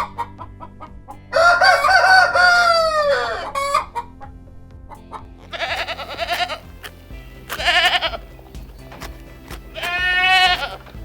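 A rooster crowing once, one long call about a second in that drops in pitch at the end, followed by three shorter chicken calls, over steady background music.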